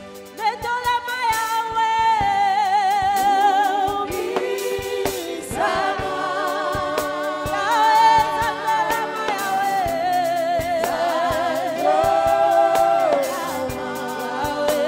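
Gospel worship music: voices singing long held notes with wide vibrato, over band accompaniment with percussion strikes throughout.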